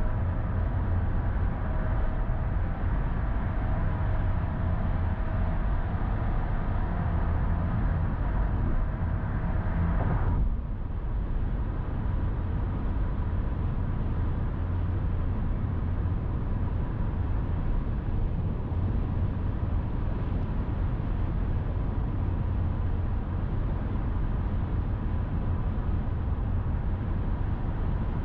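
Steady road noise of a car driving at highway speed: tyre and wind noise over a deep, even rumble. About ten seconds in, the sound changes abruptly as a few faint steady tones drop out.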